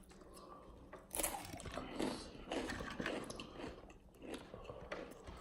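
Crunchy spicy chips being bitten and chewed, a run of crunches about once a second.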